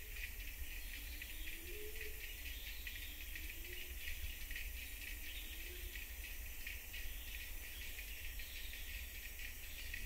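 Rainforest insect chorus: many insects chirring in a steady, high, fast-pulsing drone.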